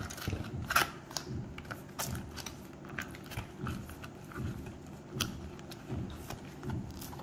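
Handling noise of wired B&O Play Earset 3i earphones and their cable being packed into a leather carrying pouch: an irregular scatter of small clicks, taps and rustles.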